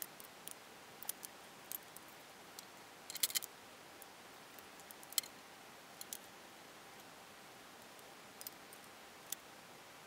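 Scattered light clicks and taps of a metal speed square and a small wooden block being handled together, with a brief cluster of clicks about three seconds in and a sharper click a little after five seconds, over a faint hiss.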